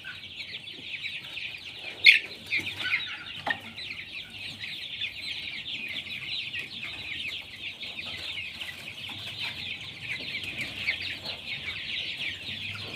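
A large flock of young desi chickens calling all at once: a dense chorus of high, short peeping calls with no let-up, and one louder call about two seconds in.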